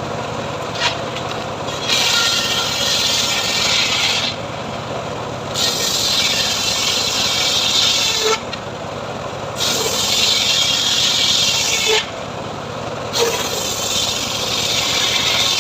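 Homemade engine-driven srekel sawmill cutting sengon wood: the motor runs steadily, and the saw bites into the timber in four loud, hissing stretches of about two and a half seconds each, with shorter lulls between them.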